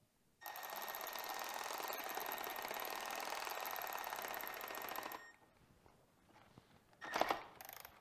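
Cordless electric ratchet running steadily for about five seconds, driving in the pivot bolt of a dirt bike's rear brake lever. A brief knock follows about seven seconds in.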